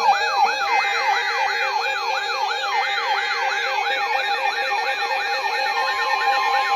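Layered electronic warning siren tones: a fast falling sweep repeating about three times a second over steady and pulsing alarm tones, with a slower rising wail starting near the end.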